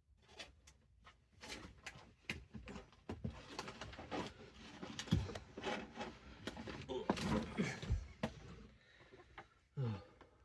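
Irregular rustling, clicks and handling noise, like the pages of a price-guide book being leafed through, with a few brief low mutters.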